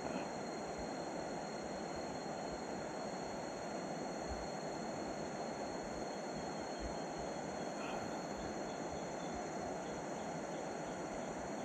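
Steady rushing background noise with a thin, high, steady tone above it. Two faint short chirps come, one right at the start and one about eight seconds in.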